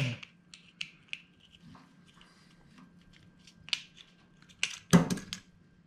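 Small plastic power seat switch parts being handled by hand during reassembly, making scattered light clicks and ticks, with a louder burst of clicks about five seconds in.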